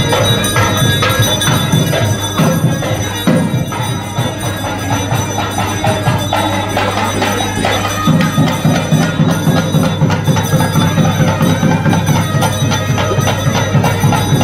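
Brass puja hand bell ringing over South Indian temple music: a reed wind instrument playing over a steady drone, with a regular beat.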